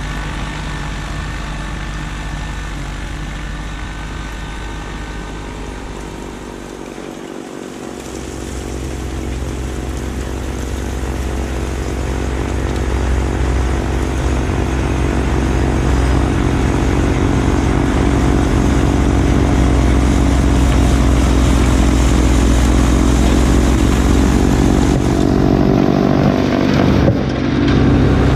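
Kubota LX2610 compact tractor's three-cylinder diesel engine running under load while it drives a front-mounted snowblower. The engine note sags briefly about seven seconds in, then builds and stays louder.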